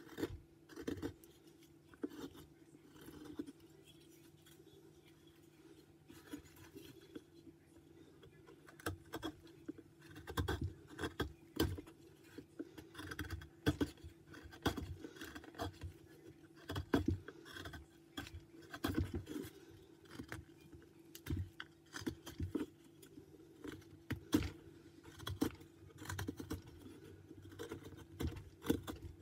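Carving knife paring white pine in short, irregular strokes, each cut a brief scrape, with a pause of a few seconds near the start. A faint steady hum runs beneath.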